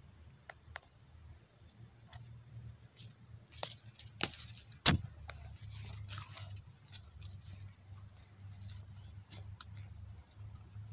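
A dog biting, tearing and chewing a crisp lettuce leaf: crackling, rustling crunches, with a few sharp snaps about four to five seconds in. A low steady hum lies underneath.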